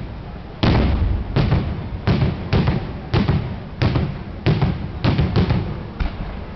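Daytime fireworks: aerial shells bursting overhead in a rapid series of loud bangs, about ten of them at intervals of roughly half a second to a second, each trailing off in an echoing tail.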